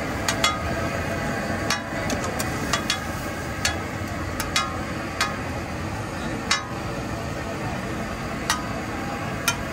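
Metal spatula clinking irregularly against an iron tawa as masala liver is stir-fried, about a dozen sharp ringing hits over a steady din of street noise.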